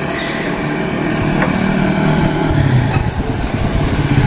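Motorcycle engine approaching, a low steady drone that grows louder through the second half, over the general noise of riding along a street.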